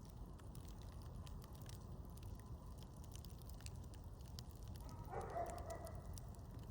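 Campfire crackling, with scattered sharp pops over a steady low rumble. A brief louder sound comes about five seconds in.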